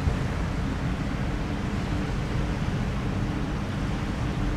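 Steady low rumble with a faint held hum from the container ship Atlantic Sail's engines, carried across the water.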